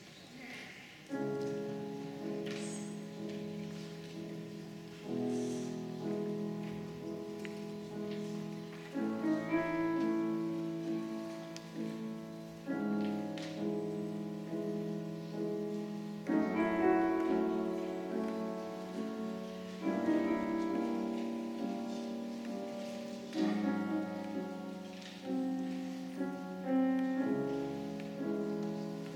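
Grand piano playing a slow introduction: chords struck about every three to four seconds and left to ring and fade.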